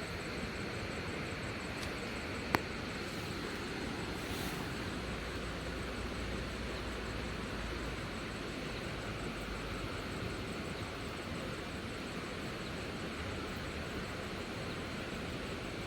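Steady outdoor background noise, an even hiss, with one sharp click about two and a half seconds in.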